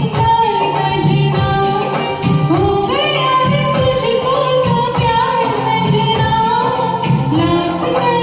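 Music: a Bollywood film song with a melodic line, singing included, over a steady rhythmic backing.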